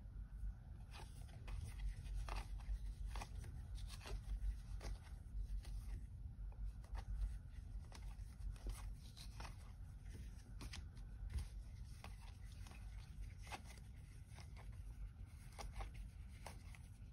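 Tarot cards being flipped through by hand, one card sliding off the stack after another: faint, irregular soft clicks and rustles of card stock, over a low steady room hum.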